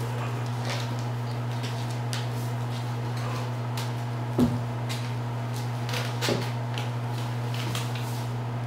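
Kittens' paws and claws skittering and scratching on a tile floor and a sisal-covered scratcher tunnel, with a thump about four and a half seconds in and a smaller one around six seconds, over a steady low hum.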